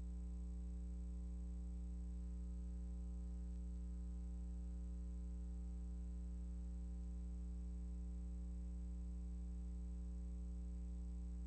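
Steady low electrical mains hum with a thin high whine above it, unchanging throughout. This is the noise floor of a silent film's video transfer; no other sound is present.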